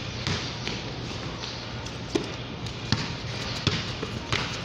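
Basketball bouncing on a hard court floor during a game: a few sharp thuds, the three loudest under a second apart in the second half.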